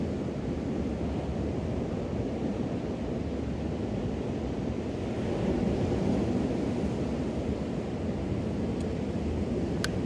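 Small ocean waves washing onto a sandy beach: a steady surf wash that swells slightly about halfway through, with a low rumble of wind on the microphone.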